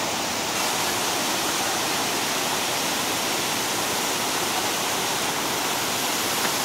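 Shallow rocky river rushing over rapids and small cascades: a steady, even rush of water.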